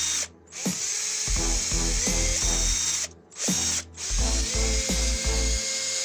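Cordless drill spinning a homemade attachment that drives a pair of tin snips, the linkage clicking as the jaws open and close. The sound cuts out briefly three times.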